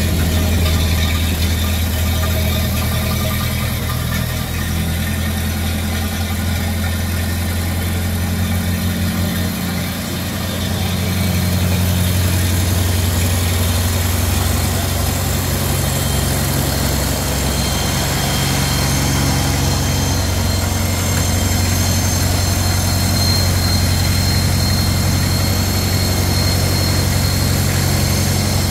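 1930 Ford Model A's freshly rebuilt four-cylinder flathead engine idling steadily. The idle sags briefly about ten seconds in, then settles back to an even idle.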